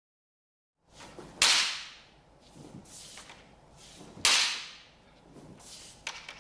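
Bamboo shinai knocking together in two sharp cracks about three seconds apart, each trailing off quickly, with a few lighter taps between. The sound comes from diverting the opponent's shinai by sweeping one's own upward along it (suri ageru).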